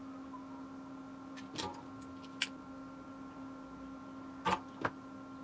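A few faint, short taps and rustles from hands and a soldering iron working on a small circuit board, over a steady low electrical hum.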